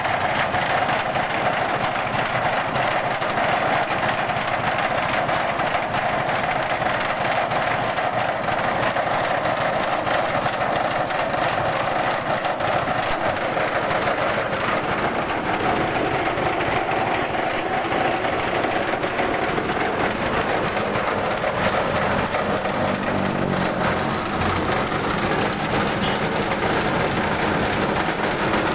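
Rice huller with a bran sieve running steadily under load, a loud constant machine noise as milled bran pours from its chute.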